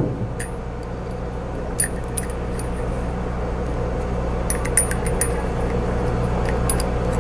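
Small metallic clicks and clinks of an 8-32 screw and Allen wrench against the stepper motor mount as the screw is located in its hole, with a quick cluster of clinks about two-thirds of the way through. A steady low hum runs underneath.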